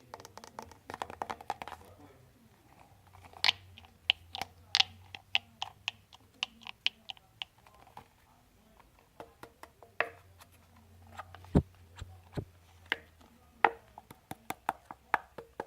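Irregular sharp taps and clicks on a hard object, in quick runs: a fast flurry near the start, a steadier string of taps a few seconds in, then scattered taps, the loudest with a dull thump about two-thirds of the way through.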